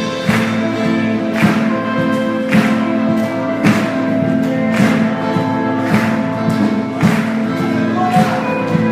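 Instrumental worship music from a church band: sustained chords over a steady beat, with a percussion hit about once a second.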